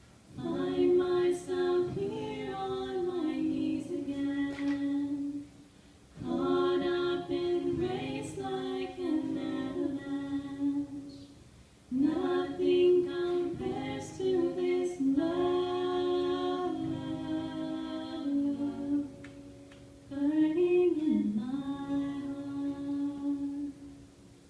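Women's voices singing a worship song in sustained phrases, broken by three short pauses, with little accompaniment.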